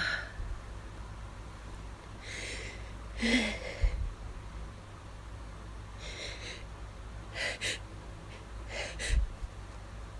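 A person's sharp gasping inhales and sniffs, the build-up during an allergy sneezing fit. Later come two quick pairs of short, sharp bursts, about a second and a half apart.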